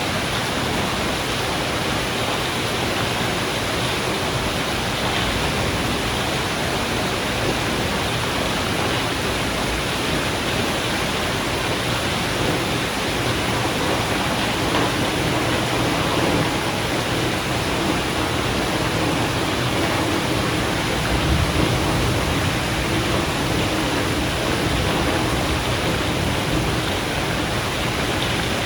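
Steady rain in a thunderstorm, a dense even hiss, with low rumbles of thunder swelling slightly around the middle and again about three-quarters through.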